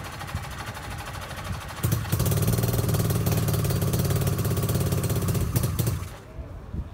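Classic motorcycle engine running quietly at first, then louder and steady from about two seconds in, dropping back about a second before the end.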